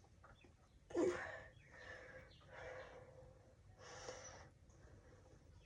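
Faint breathing sounds from a person close by: a short sigh with falling pitch about a second in, then several soft breaths or sniffs.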